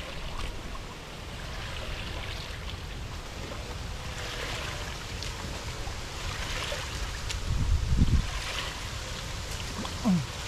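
Shallow muddy puddle water splashing and sloshing in several short spells as hands grope through it for climbing perch, with a low bump about eight seconds in.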